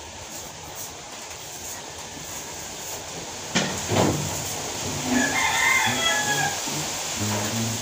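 A rooster crows once, one long call about five seconds in. Two sharp knocks come shortly before it.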